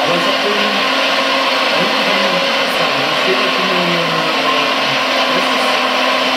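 Scale RC Liebherr R956 hydraulic excavator digging: a steady mechanical whirr from its hydraulic pump and drive, with the engine noise of its sound module, shifting slightly in pitch as the boom and bucket move.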